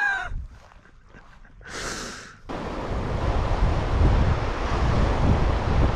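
Fast, high-running river rushing steadily, with wind buffeting the microphone in gusts. It cuts in abruptly about two and a half seconds in, after a short whooshing hiss.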